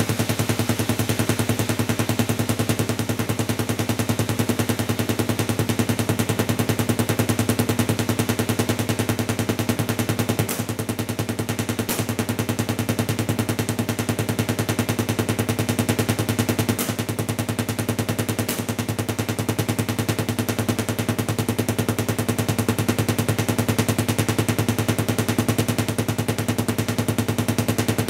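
Dual 833A vacuum tube Tesla coil firing at full output: its discharge arcs make a loud, steady, harsh buzz of rapid crackling pulses over a low hum. A few sharper cracks stand out around the middle.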